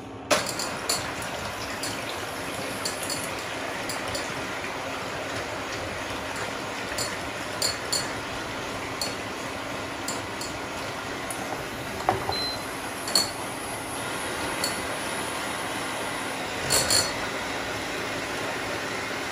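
Bosch electric hand mixer running steadily, its whisk beaters beating eggs in a glass bowl, with a sharp clink now and then as the beaters knock against the glass.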